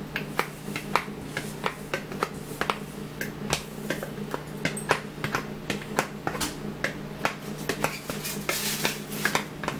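A utensil clicking and scraping against a plastic mixing bowl as batter is emptied out: irregular sharp clicks, several a second, with a longer scrape near the end. A steady low hum runs underneath.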